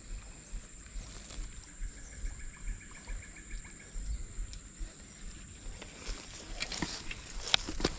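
Outdoor ambience with a steady high-pitched whine throughout. About two seconds in, a short run of evenly pulsed animal calls lasts about two seconds. Several sharp clicks and knocks come near the end.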